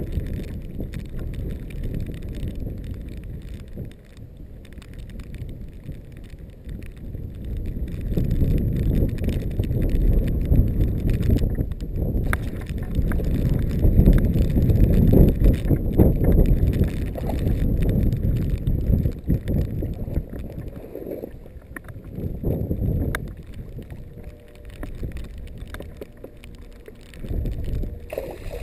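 Gusty wind buffeting the microphone: a low rumble that swells and fades, strongest through the middle stretch.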